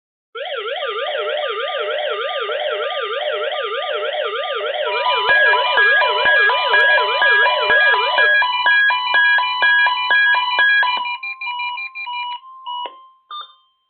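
Several NOAA weather radio receivers sounding their alert alarms at once during a Required Weekly Test. Loud warbling siren tones sweep up and down, and about five seconds in rapid pulsed beeps of different pitches join them. The warbling stops about eight seconds in, and the beeping radios cut out one after another near the end.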